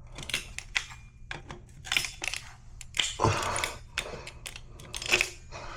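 Scattered clicks, clinks and short scrapes of shower drain parts being handled and fitted.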